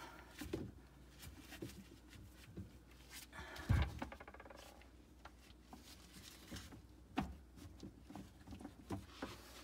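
Hands handling plastic drain fittings at a garbage disposal's discharge outlet: scattered small knocks and clicks, with one louder thump and a short scrape a little under four seconds in.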